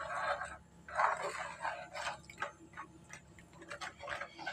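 Cornflour tipped from a glass bowl into batter in a frying pan, then a spatula stirring it fast, scraping and ticking against the pan a few times a second.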